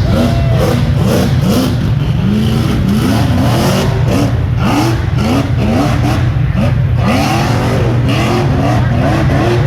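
Rock bouncer engines revving in repeated quick bursts, the pitch sweeping up and dropping back, over a steady loud low engine drone.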